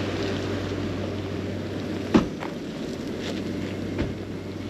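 Vehicle engine running steadily at idle, with a few sharp knocks, the loudest about two seconds in.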